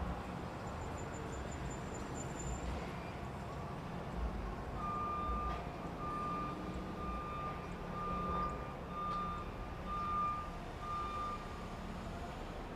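Truck engine rumbling steadily while its reversing alarm beeps, a single high tone about once a second, starting about five seconds in and stopping shortly before the end.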